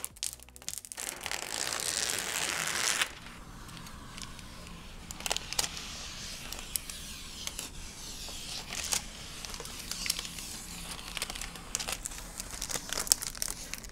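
Clear protective plastic film being peeled off a TV screen: a long, steady tearing hiss from about a second in, lasting some two seconds, then quieter crinkling of the film with scattered sharp crackles.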